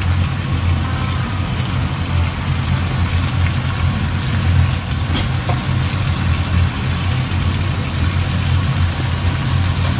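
Steady low mechanical hum, with a faint hiss above it and a few light clicks.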